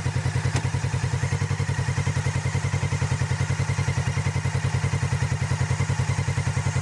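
Polaris RZR XP 900's parallel-twin engine idling steadily through its stock exhaust, an even, rhythmic chug.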